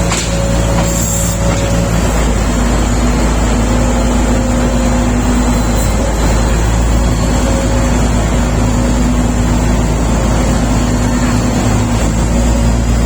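SD32 bulldozer's diesel engine running steadily with a loud, low drone.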